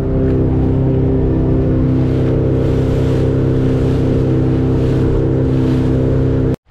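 Boat motor running steadily at speed under way, with a steady engine drone, then cutting off suddenly near the end.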